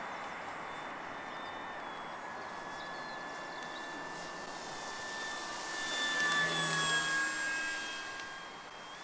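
Durafly Slow Poke RC airplane's electric motor and propeller whining in flight, growing louder as it passes close by around six to seven seconds in, then dropping in pitch and fading as it moves away.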